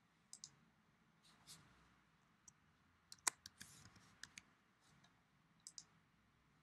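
Faint, scattered clicks of a computer mouse, several coming in quick pairs as the button is pressed and released, with one sharper click about three seconds in and softer taps between.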